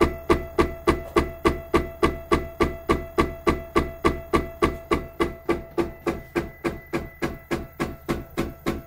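MakerBot Replicator 2 Z axis knocking over and over at an even pace of about four knocks a second, with a faint steady whine underneath. It is the sign of the fault the owner puts down to a Z-axis limit switch that no longer seems to work.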